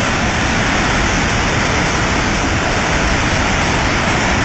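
Flash-flood torrent of muddy water rushing: a loud, steady rush of water.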